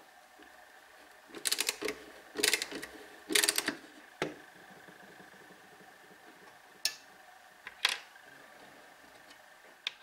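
Split-bit saw-screw driver turning brass split nuts out of a wooden saw handle: three short bursts of rapid metallic clicking in the first four seconds, then a few single clicks.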